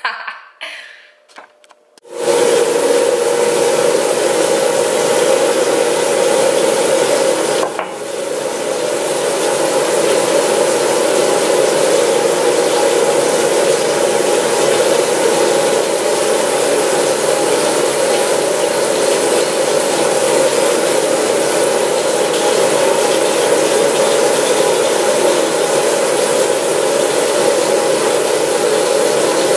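Bathroom tap running steadily into a sink basin, starting abruptly about two seconds in, with one brief dip in the flow's sound a few seconds later.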